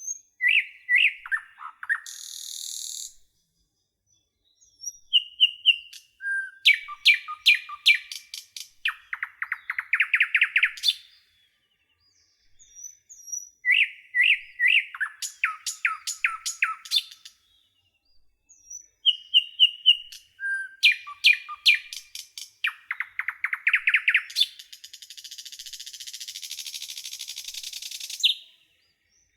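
A songbird singing in repeated phrases of chirps and fast trills, roughly every seven seconds with short pauses between. A harsh, buzzy rasp is held for about four seconds near the end.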